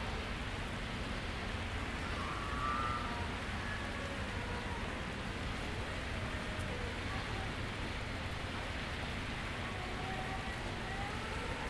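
Steady outdoor background noise with faint, indistinct voices in it and a brief higher-pitched sound about three seconds in.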